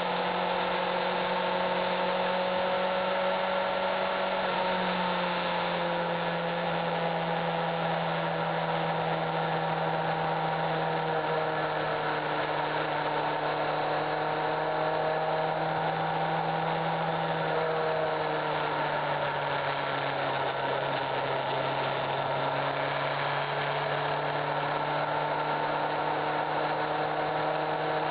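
Honda CBF600 motorcycle's inline-four engine running steadily at cruising revs, its pitch easing down and back up a few times as the throttle changes, over a steady rush of wind and road noise.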